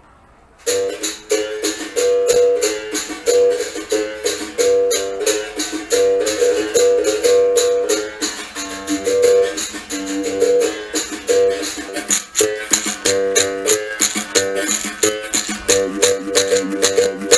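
A medium berimbau played capoeira-style: a stick strikes its steel wire, salvaged from a car tyre, in a quick steady rhythm, and the gourd resonator rings. The note alternates between two pitches as a coin (dobrão) is pressed to and lifted from the wire, and a caixixi basket shaker rattles with each stroke. It starts about half a second in.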